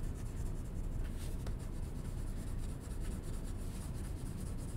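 Dark brown crayon scratching back and forth on paper as an area is coloured in.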